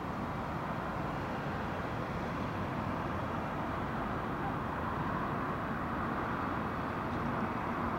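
Steady wash of distant city traffic from a wide multi-lane road, an even hum of car and tyre noise that swells slightly about five seconds in.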